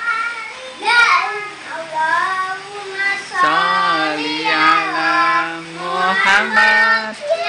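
Young children singing a sholawat, a devotional song in praise of the Prophet Muhammad, with long held, wavering notes.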